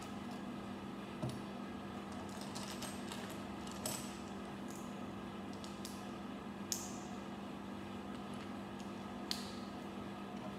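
Small plastic Lego-style bricks being handled and pressed together, giving four short, sharp clicks a few seconds apart over a steady low hum.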